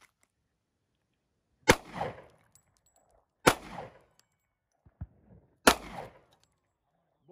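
.40 calibre semi-automatic pistol fired three times, about two seconds apart, each shot trailing off over about half a second.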